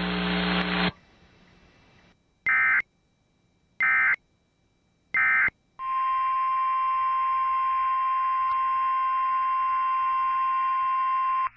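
Emergency Alert System end-of-message data bursts: three short, identical electronic screeches about 1.3 seconds apart, after the relayed weather-radio audio's hiss cuts off under a second in. About half a second after the last burst, a steady electronic tone made of several pitches sounds for about six seconds, then stops abruptly near the end.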